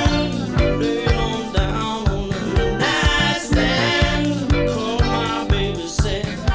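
Band recording playing: a singer over a steady drum beat and backing instruments, played back from a vinyl LP.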